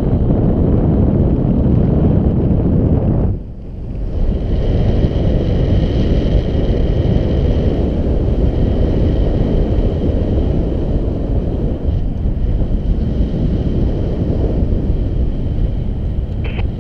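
Airflow of paraglider flight buffeting a GoPro's microphone: a loud, steady low rush that dips briefly about three and a half seconds in.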